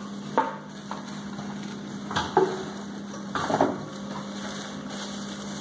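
Plastic-wrapped stainless-steel pans and lids being handled in a cardboard box: plastic rustling with three louder knocks, shortly after the start, about two seconds in and about three and a half seconds in, over a steady low hum.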